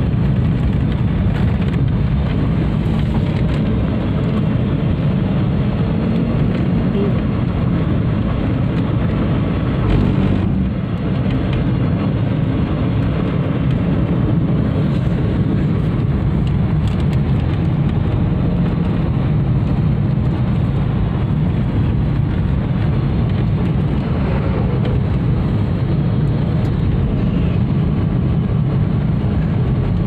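Steady low road and engine rumble heard from inside a moving car's cabin, with one short thump about ten seconds in.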